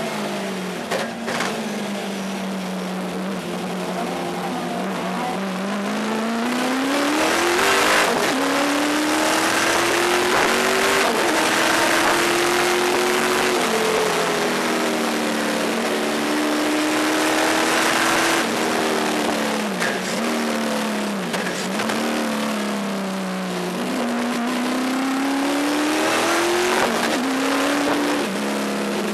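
In-car sound of a 700-plus-horsepower Pontiac Trans Am race car's V8 at racing speed, its revs rising and falling again and again, with several sharp drops, over steady wind and road noise.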